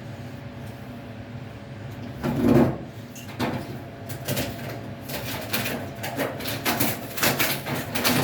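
Scraping and crinkling as the taped foil dryer vent duct is worked loose by hand and knife: one loud scrape about two seconds in, then a run of quick, irregular scrapes and rustles in the second half, over a low steady hum.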